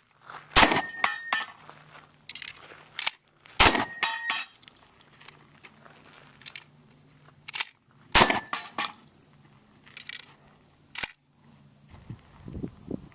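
Shotgun firing at steel targets: three loud blasts a few seconds apart, each followed by a brief ring of struck steel, with lighter clacks in between.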